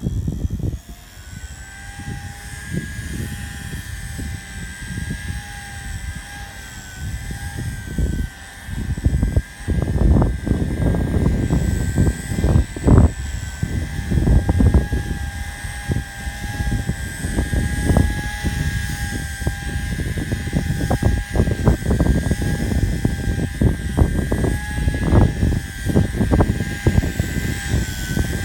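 Align T-REX 150X micro electric RC helicopter in flight: a steady high whine from its motor and rotors that wavers slightly in pitch as it holds position. Strong gusts of wind buffet the microphone with an uneven rumble.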